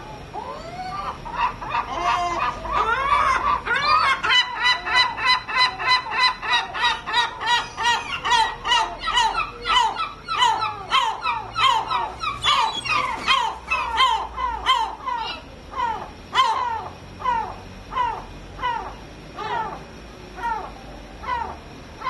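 Yellow-legged gulls calling in a long series of repeated notes, about two a second. The notes pile up and overlap early on, then grow weaker and more spaced out toward the end.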